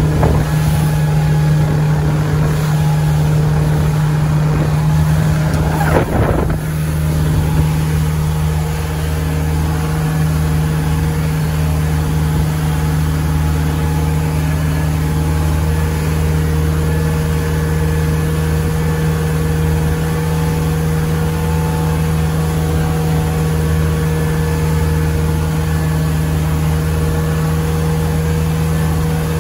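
Motorboat engine running steadily at speed, a constant low hum over a hiss of wind and water. About six seconds in there is a brief sweep, and the lowest part of the hum grows stronger.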